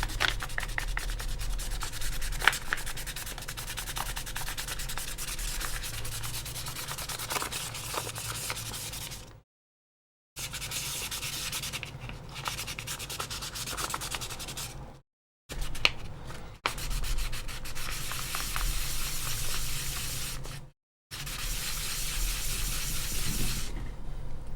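Sandpaper being rubbed by hand over the plastic of an AirPods Pro case, a continuous scratchy sanding noise that cuts out abruptly to silence a few times.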